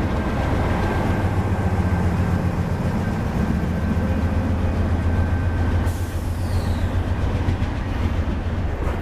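Two Norfolk Southern GE C40-9W diesel locomotives pulling a freight train away under power, their 16-cylinder engines giving a steady deep drone. The trailing unit passes by and the freight cars roll after it.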